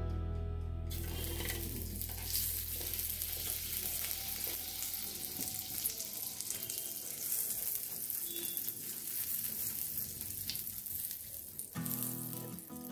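Butter sizzling on the hot ribbed plate of an electric contact grill: a steady hiss that starts about a second in and stops shortly before the end.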